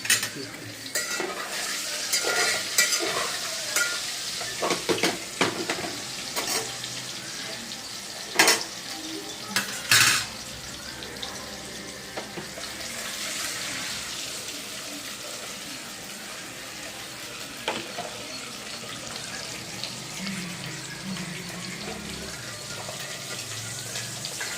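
Boiled eggs frying in hot oil in a pan, sizzling while a spoon stirs and scrapes them as they brown. Several sharp knocks of the spoon against the pan come about eight and ten seconds in.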